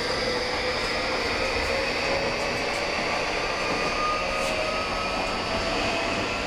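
Tokyu 2020 series electric train running: steady rumble of running noise with faint motor tones slowly rising in pitch as it picks up speed. The motor sound is quite quiet.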